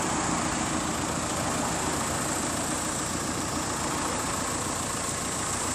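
Steady vehicle engine noise with a constant high hiss over it.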